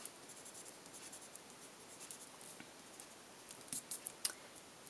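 Faint scratching of a Prismacolor coloured pencil stroked over paper, going back over coloured areas with a light putty shade, with a few small clicks near the end.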